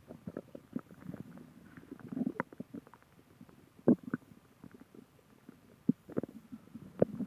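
Human stomach growling: irregular low gurgles broken by short sharp pops and squelches, the loudest pop about four seconds in.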